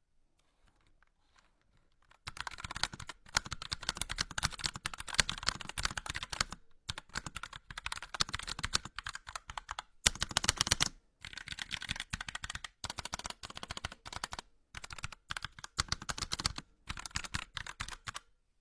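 Fast typing on an EWEADN V20 full-size mechanical keyboard with pink switches: dense runs of keystrokes starting about two seconds in, broken by several short pauses. The switches sound neither clacky, clicky nor creamy.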